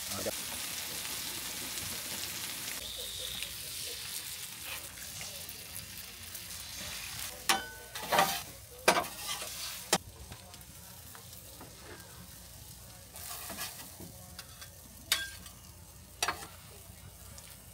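Bacon and sausage patties sizzling on a flat-top griddle, the sizzle strongest for the first few seconds. From about seven seconds in, a metal spatula clacks and scrapes against the griddle a handful of times.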